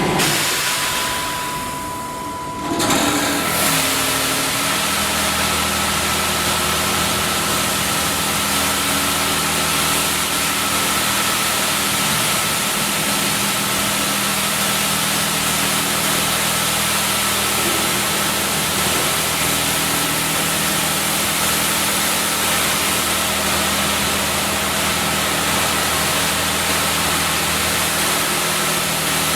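Automatic car wash machine running: a steady motor hum under a loud, even hiss that starts about three seconds in and holds level.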